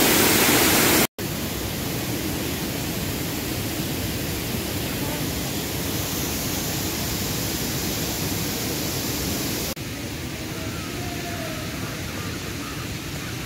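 Monsoon-swollen waterfall rushing in a steady roar of falling water, broken by a brief dropout about a second in.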